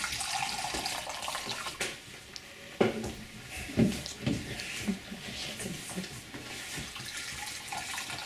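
Juice running from the tap of a 5-litre bag-in-box carton into a cup, splashing most strongly in the first two seconds. Two sharp knocks stand out, about three and four seconds in.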